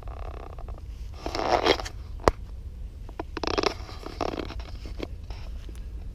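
Bare tree branches and twigs scraping and brushing past as someone pushes through them: two rustling swishes about two seconds apart, with one sharp snap between them, over a steady low rumble.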